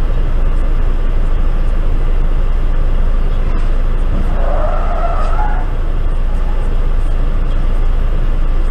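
Steady low rumble of a stopped car and passing city traffic, picked up by a dashcam. About four seconds in there is a brief, higher squeal-like sound from the traffic.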